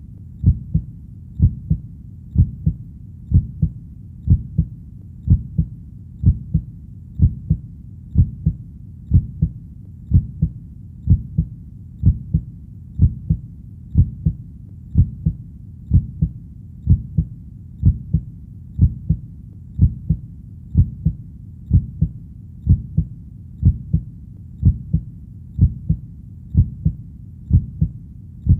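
Heartbeat: a steady, deep lub-dub double thump about once a second, over a low steady hum.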